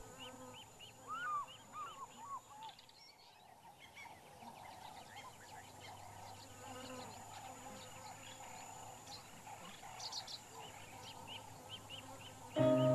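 Quiet bush ambience of birds calling: a steady run of short, high, repeated chirps, with a few lower, curving calls in the first couple of seconds. Soft music comes in just before the end.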